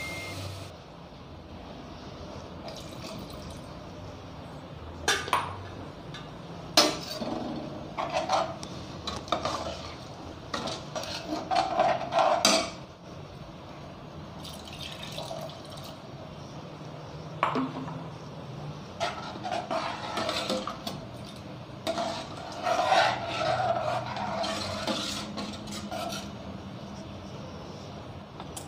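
Steel ladle stirring and scraping in a stainless steel pot as water is poured into the dal and beetroot sambar, with a few sharp knocks of metal on metal and clusters of clinking. A low steady hum runs underneath.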